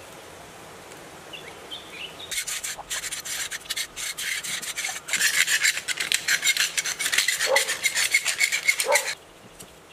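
Fast, rough scraping strokes, many a second, on the copper wire leads of a rewound electric motor stator; they begin about two seconds in and stop abruptly near the end.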